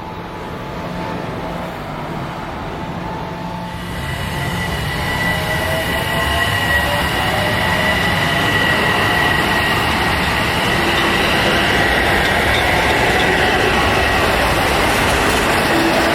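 A passenger train running past on the main line, its rumble growing louder and then holding steady, with a high ringing whine from the wheels and rails.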